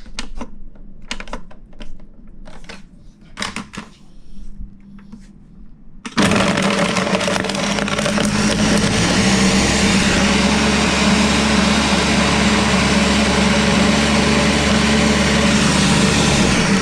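A few light knocks and clicks, then about six seconds in an electric countertop blender starts and runs steadily for about ten seconds, blending a protein shake with ice and water, and cuts off near the end.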